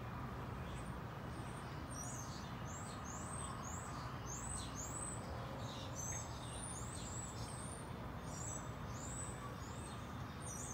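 A bird calling in a steady series of short, high chirps, about two a second, starting a couple of seconds in, over steady low background noise.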